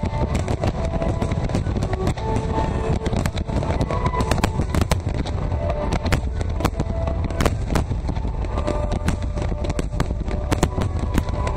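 Fireworks show: many sharp bangs and crackles in quick succession over a constant low rumble, with music playing underneath.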